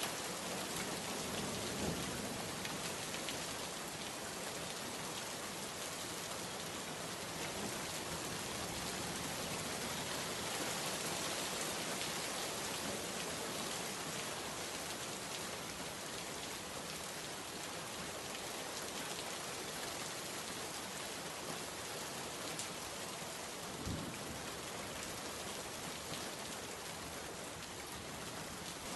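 Steady rain, a dense even hiss of drops falling on hard surfaces. There are two brief low thuds, one about two seconds in and one near the end.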